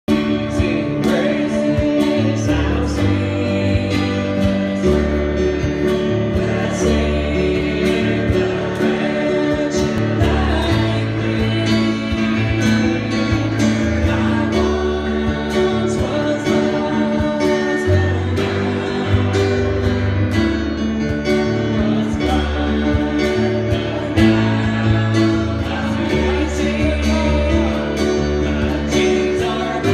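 Live gospel band playing through a PA: acoustic and electric guitars, bass and keyboard, with voices singing and a light percussion beat.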